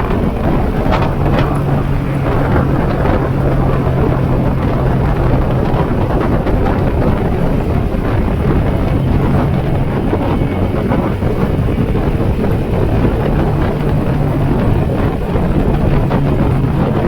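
Yamaha Sniper 150's single-cylinder four-stroke engine running at cruising revs on the road, its note holding fairly steady and stepping up slightly about a second in. Wind rushes over the microphone throughout.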